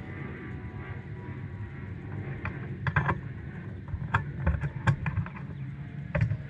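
Sharp clicks and knocks of a brass quick-connect air-hose fitting and its fill hose being handled and snapped onto the fill port of a SeaStar hydraulic steering helm, a cluster of them from about halfway through, over a steady low rumble.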